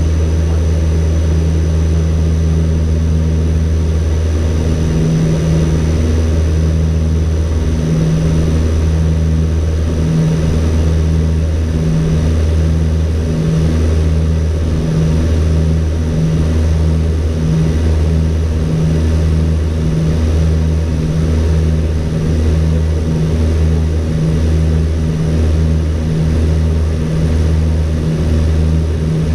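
ATR 42-320's twin Pratt & Whitney PW121 turboprops and propellers droning steadily in the cockpit during the approach. About five seconds in, the low drone starts to throb, slowly at first and then about once a second: the beat of the two propellers turning at slightly different speeds.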